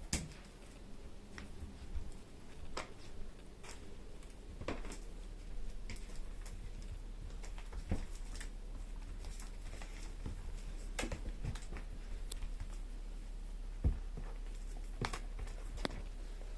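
Scattered light taps and clicks at irregular intervals, sharpest just after the start and about 14 seconds in, over a low steady hum.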